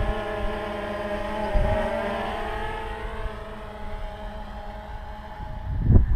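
DJI Phantom 2 quadcopter's four motors and propellers whining, the pitch wavering about two seconds in, then fading as the drone flies away. Wind buffets the microphone at the start and near the end.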